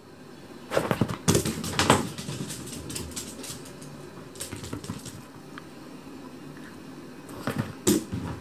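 A Chihuahua's paws and claws scrabbling and knocking on a leather sofa as it dashes about. There is a quick cluster of knocks about a second in, lighter pattering after, and another loud cluster near the end.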